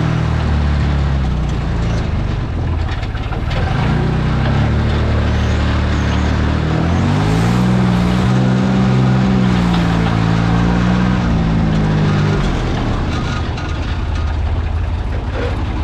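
Delivery truck's engine running as it drives off. The engine note rises about seven seconds in, holds, then drops back around twelve and a half seconds in. The exhaust is loud, having grown louder over recent weeks.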